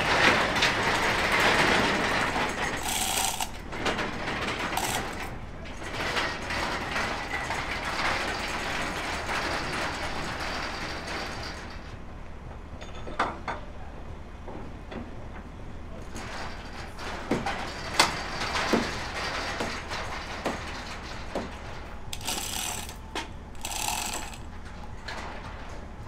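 Hand-worked chain hoist lifting a ride section: the ratchet and chain clatter steadily for about twelve seconds, then scattered sharp metal knocks and clicks, with a short burst of clattering again near the end.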